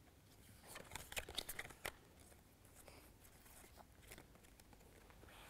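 A few faint clicks and soft snaps of playing cards being handled and laid down, mostly in the first two seconds; otherwise near silence.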